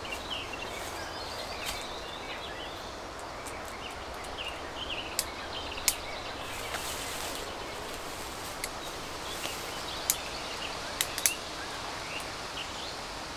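Quiet woodland ambience with small birds chirping now and then, and a few sharp clicks and soft rustles of a climbing rope and its gear being handled on the ground.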